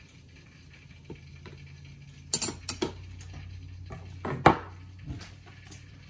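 Metal knife scraping and clinking against a glass jar of hot pepper condiment as it is knocked out into a bowl: a few sharp clinks about two and a half seconds in, and the loudest about four and a half seconds in.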